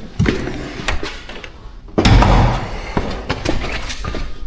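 Jeep Compass hood being opened: clicks and knocks from the release and latch, with one loud thump about two seconds in.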